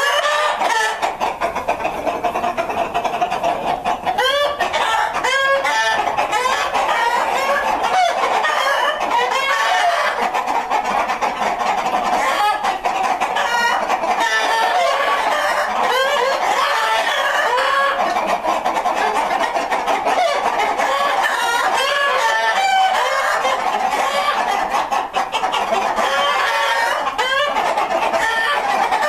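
A large flock of New Hampshire chickens clucking and calling all at once in a dense, continuous chorus, with a rooster crowing at times.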